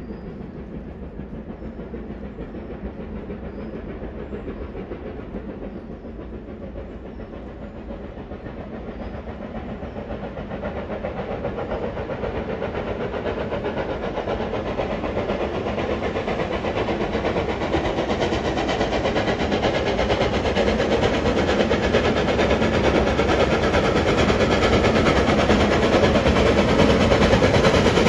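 A BR Standard Class 4 tank steam locomotive hauling coaches, approaching and growing steadily louder, loudest at the end as it comes into view.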